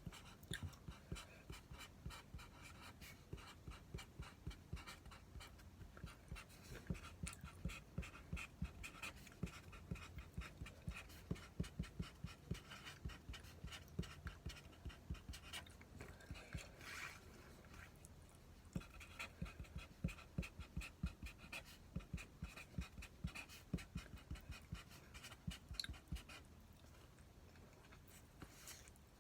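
A person chewing food with the mouth, making steady wet smacks and clicks a few times a second. The chewing eases off briefly in the middle and stops near the end.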